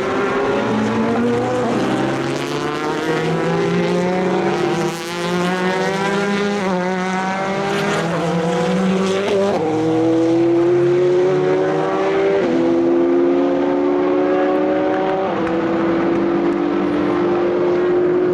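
GT race car engines accelerating hard, their pitch climbing slowly and dropping back at each upshift about every three to five seconds, with more than one car heard at once.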